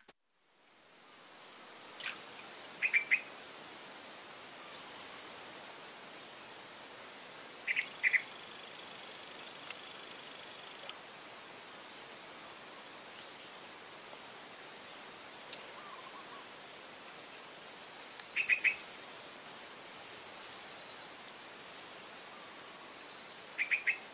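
Steady high-pitched drone of insects, with short bird calls breaking in: a couple of brief chirps a few seconds in, and a run of louder calls towards the end.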